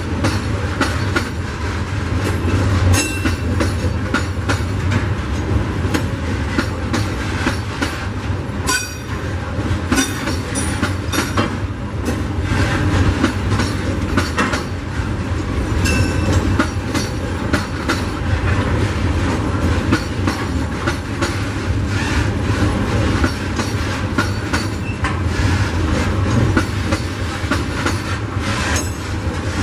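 Loaded freight wagons carrying eucalyptus logs rolling steadily past on the rails: a continuous low rumble with the rhythmic clatter of wheels over the track, and a few brief high squeals from the wheels.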